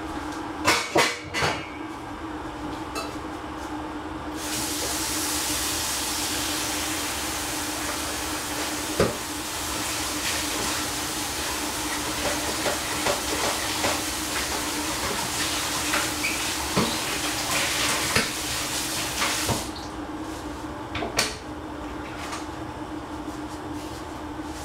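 A kitchen tap runs in a steady rush that starts about four seconds in and cuts off suddenly near twenty seconds. Light clinks of dishes and pots come and go throughout, over a steady low hum.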